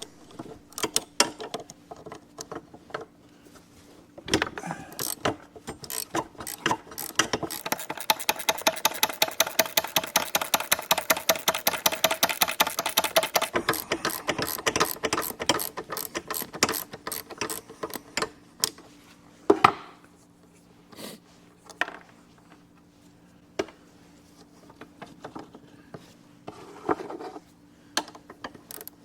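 Ratcheting wrench turning a half-inch bolt: scattered clicks and knocks, then a fast, even run of ratchet clicks for several seconds in the middle, with a faint steady hum underneath.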